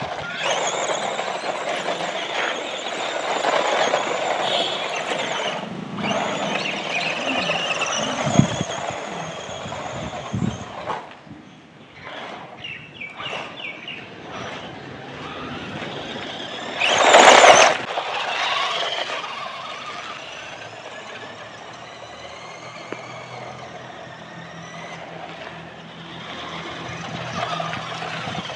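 Tygatec Supersonic RC truggy driving on gravelly dirt: its electric motor whines, rising and falling in pitch with the throttle, over the hiss of the tyres on the grit. A loud, brief rush of noise comes about two-thirds of the way through.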